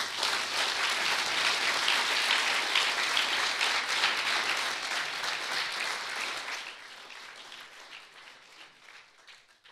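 Audience applauding at the end of a talk. The applause starts all at once, holds strong for several seconds, then thins out and dies away near the end.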